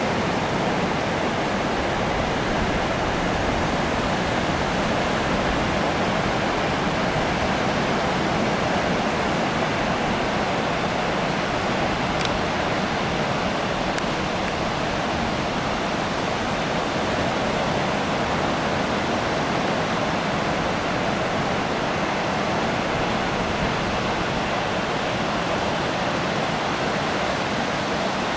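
Ocean surf breaking on a sandy beach: a steady, even rushing noise with no distinct wave-by-wave swells.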